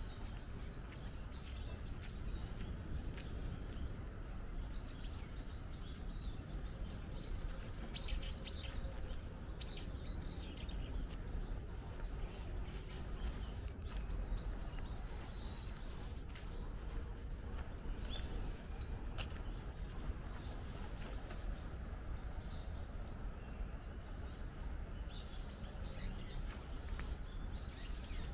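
Birds chirping and calling over a steady low outdoor rumble, with the liveliest run of chirps about eight to eleven seconds in and more near the end.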